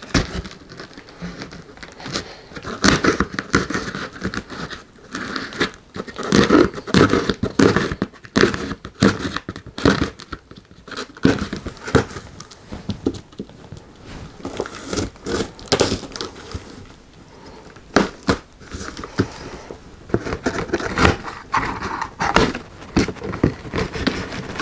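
Plastic packing tape on a cardboard box being slit with the edge of a small axe head and torn, with irregular crackling, scraping and tearing; near the end the cardboard flaps are pulled open.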